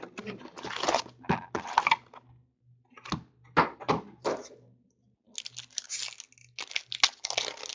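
Crinkling and tearing of plastic and foil wrapping as a box of hockey card packs is opened, with the foil packs rustling and knocking on the table as they are tipped out and laid down, in irregular handling bursts.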